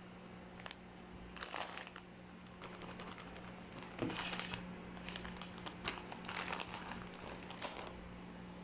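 Plastic bag of tapioca flour crinkling as it is handled and tipped out, in a series of short rustling bursts that come and go.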